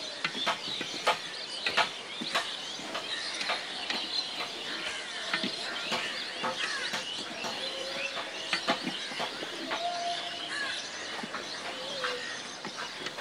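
Small birds chirping steadily, with a scatter of sharp knocks that are loudest in the first two seconds.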